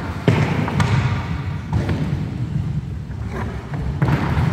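Inline skate wheels rumbling on a wooden sports-hall floor, with several sharp clacks of hockey sticks hitting the ball or floor during play.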